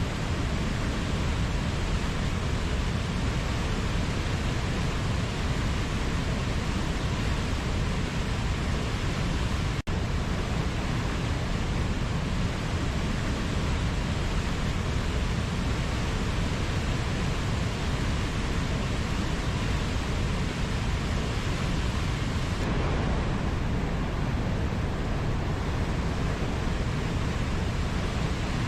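Waterfall: a steady, even rush of falling water, with a momentary dropout about ten seconds in.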